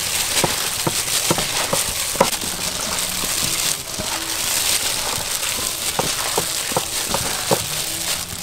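Gloved hands squeezing and tossing sliced raw pork belly with its seasoning in a steel bowl: wet meat squelching and plastic bags crinkling, with irregular small clicks and slaps.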